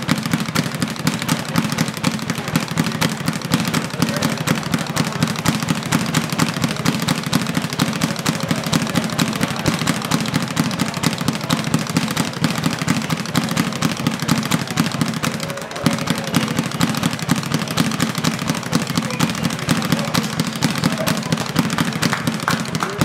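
Speed bag being punched fast and continuously: a rapid, even rattle of blows and rebounds, with a short break about 15 seconds in.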